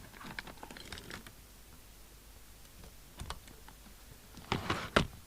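Scattered small clicks and light knocks of hands handling plugs and leads while hooking up a CB radio on the bench, with a quicker cluster of louder clicks near the end.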